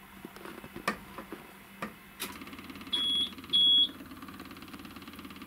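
A few clicks from the cab controls. Then, just over two seconds in, the Hitachi ZW40 wheel loader's diesel engine starts and settles into a steady idle. Soon after come two short high beeps from the machine's buzzer.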